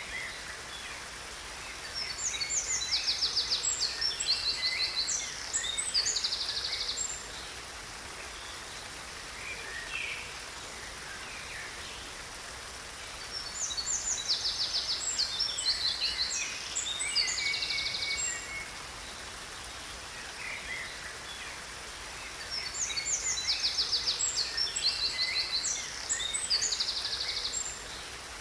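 A songbird singing three bouts of rapid, high trilled song, each several seconds long, over the steady rush of a waterfall.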